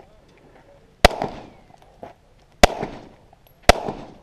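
Three pistol shots, the second about a second and a half after the first and the third about a second later, each trailing off in a short echo.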